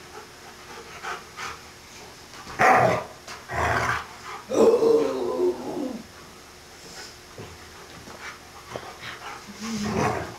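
A large dog barking during rough play: two sharp barks about three and four seconds in, then a longer drawn-out vocal sound with falling pitch, and another bark near the end.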